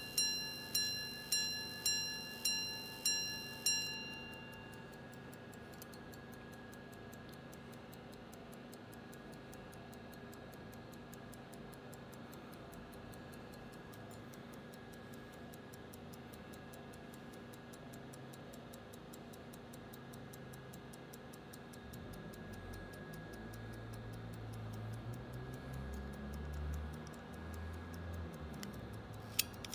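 Longines minute-repeater pocket watch chiming the time: a run of about six evenly spaced single strikes on a gong, each ringing out, in the first few seconds. The movement then ticks steadily and faintly, with a low handling rumble in the last third and a sharp click just before the end.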